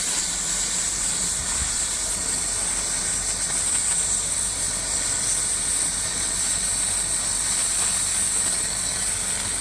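Steady loud hiss over a low, even electrical hum, unchanging throughout.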